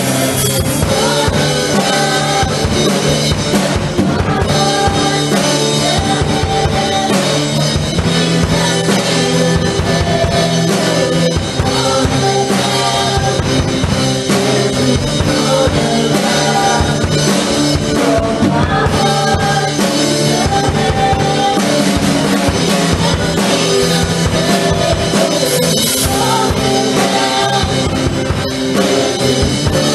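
Praise band playing a worship song, with a drum kit, and pitched instruments carrying the melody and chords.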